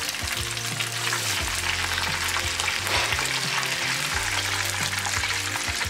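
Whole cornmeal-dredged crappie frying in hot oil in a small pan: a steady, dense sizzle and crackle of bubbling oil, the sizzle wanted for frying.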